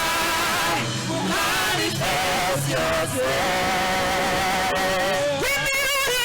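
Live worship music: a voice sings long, drawn-out notes with vibrato over band accompaniment. One note is held for about two seconds in the middle, and a higher note comes in near the end.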